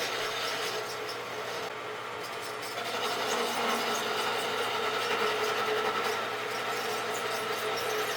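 Rockwell wood lathe running steadily with a turning tool cutting the spinning wooden bat blank, a continuous motor hum under a rough scraping of the tool on the wood as a section is rounded.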